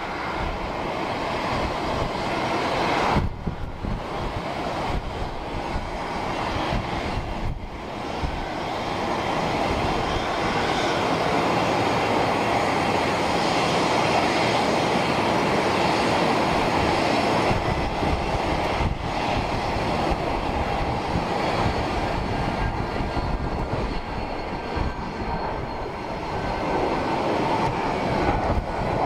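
Jet airliner engines running at high power, a loud, even rushing noise that swells about eight seconds in and then holds, with a faint high whine near the end and a few momentary dips.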